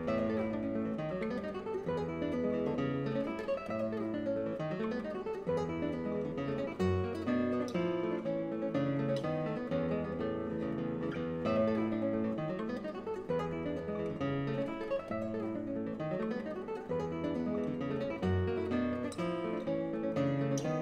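Solo classical guitar music: a steady run of plucked notes and chords.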